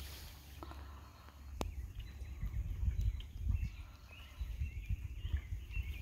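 Birds chirping in the trees: a run of short, high calls in the second half, over a gusty low rumble, with one sharp click about a second and a half in.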